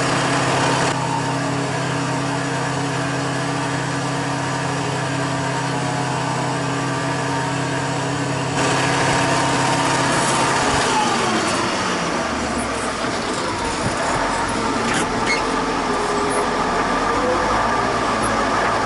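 Tractor diesel engine running steadily. About halfway through, its tone drops away to a lower, rougher hum.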